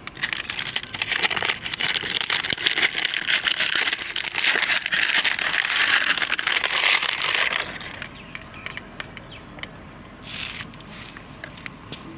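Thin plastic or paper wrapping crinkling and rustling as it is handled, loud and continuous for about seven seconds, then dropping to a few scattered crinkles.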